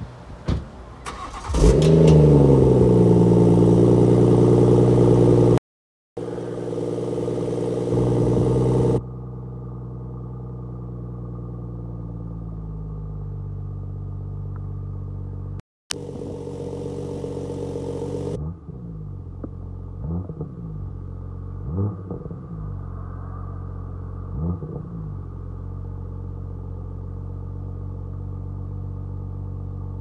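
BMW M135i exhaust: the engine starts about a second and a half in and flares to a loud, high idle, then drops to a quieter idle that slowly settles lower. Later it takes four short throttle blips, each rising and falling, before idling on.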